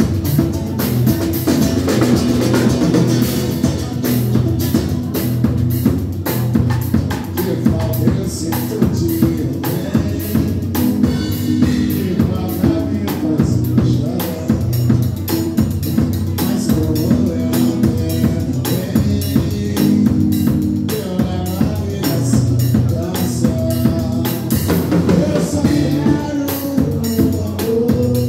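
Live band music: a drum kit keeping a steady beat with an acoustic guitar.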